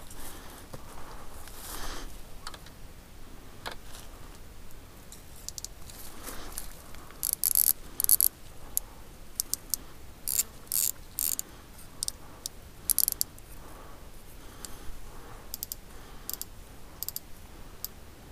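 Fishing reel ratcheting: several short bursts of rapid clicking, with lighter single ticks in between.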